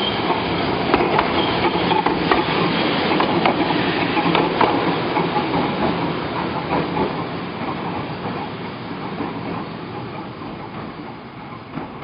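Toyohashi Railway 3100-series tram (ex-Nagoya city tram 1400) running past on street track with the grinding running noise of its nose-suspended (tsurikake) motor drive and sharp clacks of its wheels over the rail joints. It is loudest in the first few seconds as it passes, then fades steadily as it draws away.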